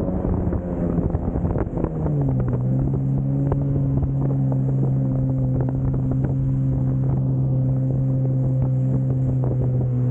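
Jet ski engine running under way. Its note drops about two seconds in and then holds steady, with wind noise on the microphone and short knocks of splashing water.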